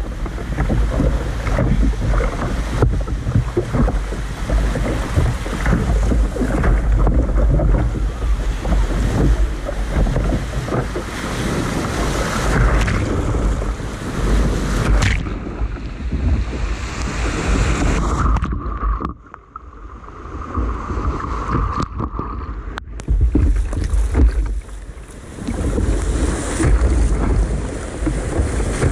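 Small surf breaking and washing around the bow of a sit-on-top kayak, with heavy wind rumble on the microphone. The sound dips and turns muffled for a few seconds about two-thirds through.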